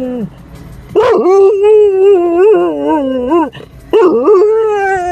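A dog howling in long, wavering, pitched calls: one dies away just after the start, a long one of about two and a half seconds begins about a second in, and another starts near the end and slides down in pitch.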